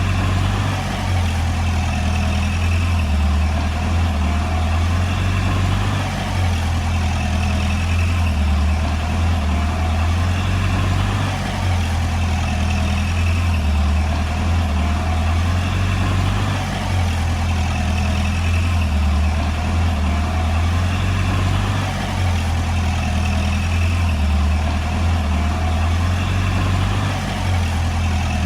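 Diesel engine of a Komatsu D20P bulldozer running steadily, a low rumble whose level barely changes.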